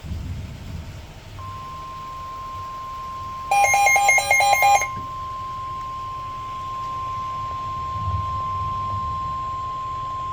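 NOAA Weather Radio warning alarm: a single steady high tone starting about a second and a half in and holding for about nine seconds, the signal that a warning broadcast, here a severe thunderstorm warning, is about to be read. About three and a half seconds in, a loud burst of rapid warbling multi-tone beeps lasts just over a second, with a low rumble underneath at times.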